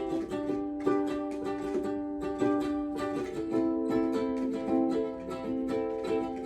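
A small stringed instrument strummed in steady rhythmic chords, the instrumental opening of an upbeat song, with a chord change a little past halfway.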